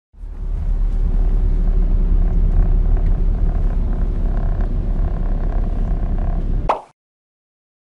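Cabin noise of a BMW F30 3 Series on the move: a steady low rumble of road and drivetrain with a few faint ticks. A short sharp noise comes just before it cuts off suddenly near the end.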